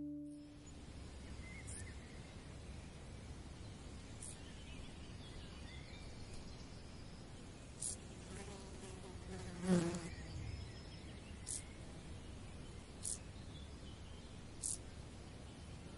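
Quiet rural ambience with insects buzzing, after the last note of a fiddle-and-cello tune dies away at the very start. About ten seconds in a fly buzzes close past, the loudest sound. A few faint short clicks come at intervals.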